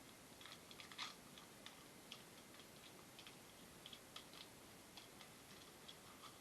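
Faint, irregular light clicks and taps of trading cards being handled, over quiet room tone, with one slightly sharper click about a second in.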